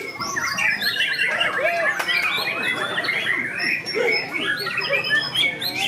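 Several white-rumped shamas (murai batu) singing at once: a dense, overlapping mix of loud whistled phrases, quick trills and chattering notes, including a fast trill in the first two seconds.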